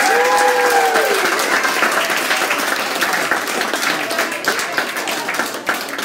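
The song's last held note falls away about a second in, and audience applause takes over, with voices mixed into the clapping.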